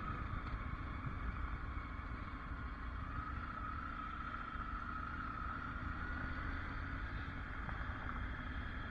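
Triumph Tiger adventure motorcycle's three-cylinder engine running at low road speed: a steady low rumble with a faint whine that rises and falls slightly.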